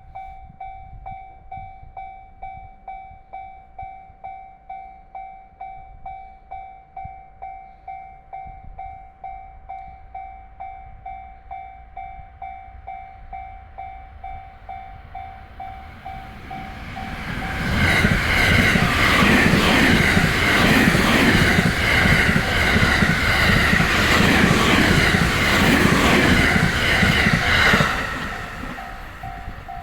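Japanese level-crossing warning bell ringing about twice a second. Then the Sunrise Express, a 285 series electric sleeper train, passes at high speed for about ten seconds, loud, with its wheels clattering over the rail joints. The bell is heard again as the train clears the crossing.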